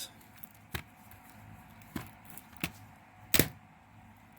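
Four short sharp plastic clicks and knocks, spaced irregularly, the loudest about three and a half seconds in: CD jewel cases being handled and set down.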